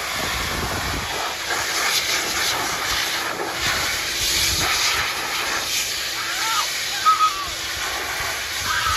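K-9 II high-velocity dog dryer running with both motors on and the nozzle fitted, blowing a steady rush of air.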